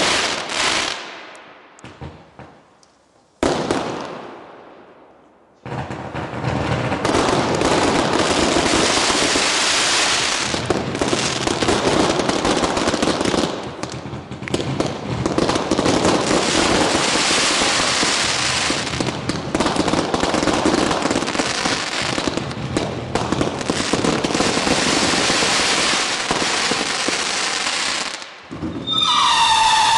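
Consumer fireworks going off. A volley fades away over the first few seconds with one sharp bang at about three and a half seconds. From about six seconds a long, dense run of rapid bangs and crackle follows, and near the end a whistling howl sets in.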